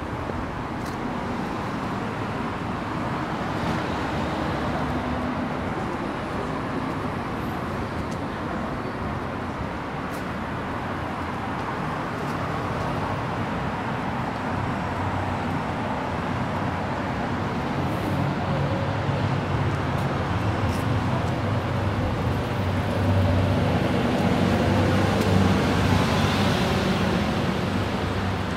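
City street traffic: cars running past in a steady wash of engine and tyre noise, with one vehicle passing close and louder, a low engine rumble, near the end.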